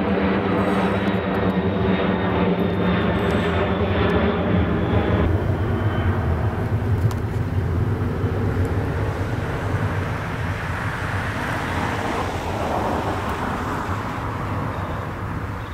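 Air Force One, a Boeing 747-based VC-25A, climbing away overhead on its four turbofan jet engines. A steady droning tone sits over the jet rumble and drops away suddenly about five seconds in. What is left is a broad rumble that slowly fades as the jet recedes.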